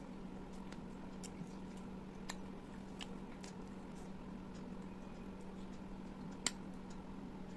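Close-miked eating: scattered wet mouth clicks and soft chewing, with a sharp click about two seconds in and a louder one near the end, over a steady low hum.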